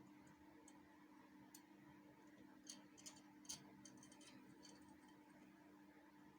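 Near silence with a handful of faint, irregular clicks and ticks from a screwdriver tightening screws on an industrial sewing machine's plate, over a steady low hum.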